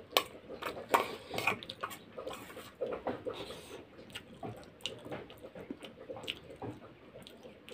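Steel spoon clicking and scraping in a steel bowl, with close-up chewing of chiwda (beaten rice). The small clicks are irregular, with the sharpest clink about a second in.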